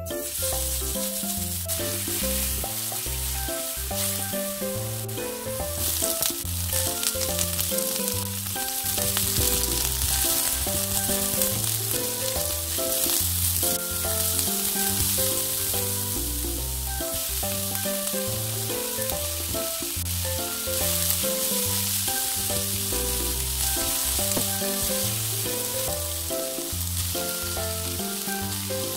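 Garlic, onion and ham sizzling as they fry in hot oil in a nonstick pan, stirred with a silicone spatula; the sizzle grows denser about six seconds in. Background music with a steady melody plays over it.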